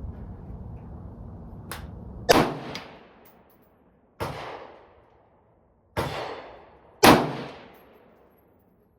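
Four AR-15 rifle shots, about one to two seconds apart, each trailing off in a reverberating echo; the first and last are the loudest. A fainter sharp crack comes just before the first shot.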